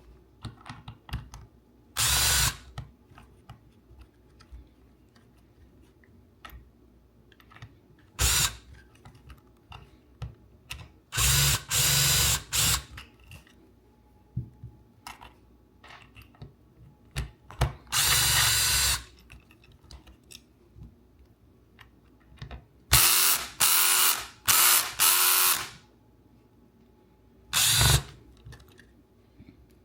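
Cordless power driver with a T20 Torx bit running in short bursts, about seven, each a second or two long, backing out the screws. Small clicks of handling come between the bursts.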